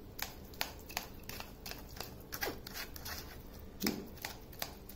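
Wooden spoon scraping and pressing mashed tomato against a stainless-steel mesh strainer, making irregular light clicks and scrapes a few times a second as the rasam pulp is pushed through the sieve.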